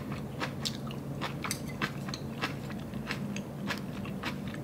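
Close-miked chewing of kimchi: irregular crunching clicks, about three a second, over a faint steady low hum.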